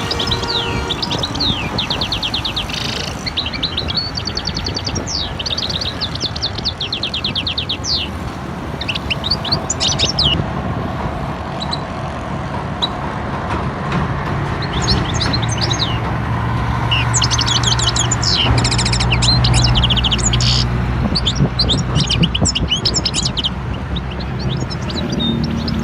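Many small birds chirping and twittering in quick trills and short repeated calls. A low steady rumble runs underneath from about halfway in.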